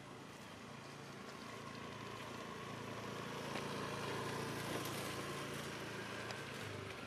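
A motorbike engine running, growing louder to a peak about four to five seconds in and then fading a little, as if it is passing close by.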